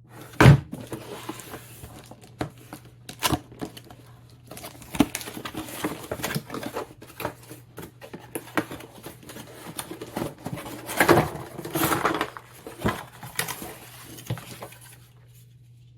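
Packaging being handled during an unboxing: irregular rustling and crinkling of box and wrapping, with scattered sharp clicks and knocks, the loudest about half a second in.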